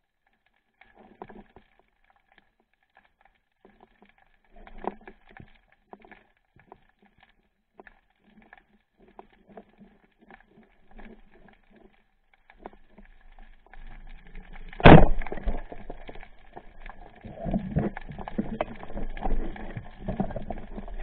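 Underwater sound picked up through a speargun-mounted camera's housing: faint scattered clicks and ticks, one sharp loud knock about three-quarters of the way in, then louder water noise and knocking as the diver moves.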